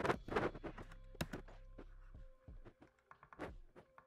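Scattered sharp clicks and taps of a computer keyboard and mouse, bunched at the start and again about three and a half seconds in, as a new file is named and created.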